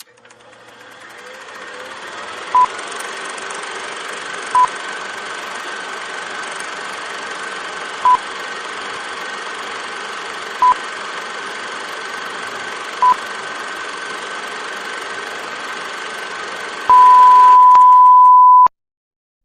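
Five single electronic beeps a few seconds apart over a steady hiss and faint high hum, then one long unbroken beep of nearly two seconds that cuts off suddenly.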